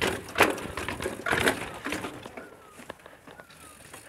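Mountain bike jolting down concrete steps: knocks and clatter of the wheels and frame dropping off each step edge, loudest in the first second and a half, then softer rattling. A few faint short falling whistles sound in the second half.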